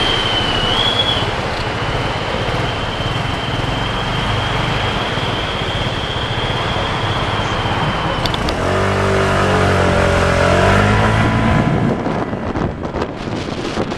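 Road traffic noise with a faint steady high whine; about eight seconds in, a nearby engine revs up and pulls away, rising in pitch, and wind starts buffeting the microphone near the end.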